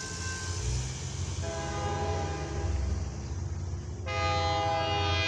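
An approaching diesel freight locomotive's air horn sounds for the grade crossing. A held chord starts about one and a half seconds in and becomes a much louder blast about four seconds in, over the low rumble of the locomotives.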